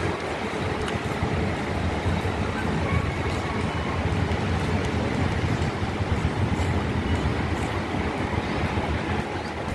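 Steady outdoor rumble: wind buffeting the camera's microphone, with city traffic noise behind it.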